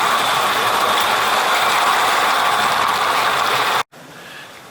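A steady mechanical rattle, typical of a small-scale garden-railway train running over its track, that cuts off abruptly about four seconds in.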